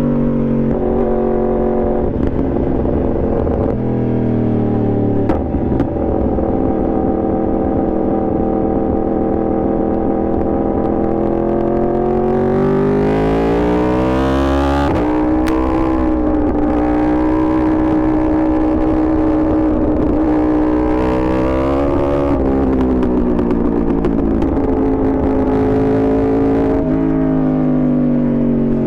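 Yamaha R1 sport bike's inline-four engine running loud under way, its pitch holding and stepping between gears, climbing in revs about halfway through and again about two-thirds in.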